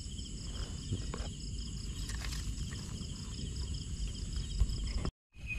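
Night insect chorus: crickets chirping in fast, even pulsing trills, with a low rumble and a few light rustles and clicks underneath. The sound cuts out for a moment near the end, then comes back with a different, lower-pitched insect trill.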